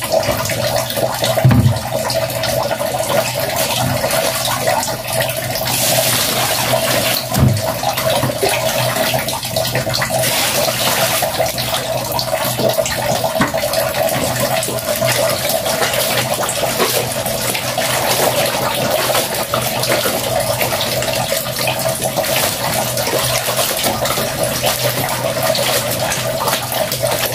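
Wet clothes being scrubbed and kneaded by hand in a plastic basin of soapy water, with sloshing and splashing. A steady hum runs underneath, and two brief low thumps come about a second and a half in and again about seven seconds in.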